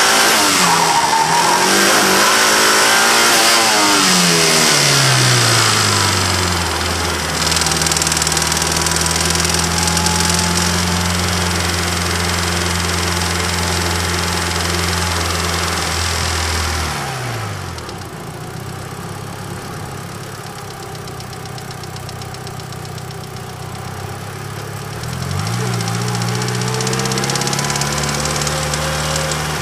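Car engine heard close up from inside the engine bay, knocking from a failed connecting-rod bearing and cracked crankshaft. Its speed falls over the first few seconds and holds steady. It drops to a lower speed about halfway through, picks up again near the end and falls back.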